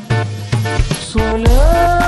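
Background music with a steady beat and a sustained melody line that slides up in pitch about one and a half seconds in.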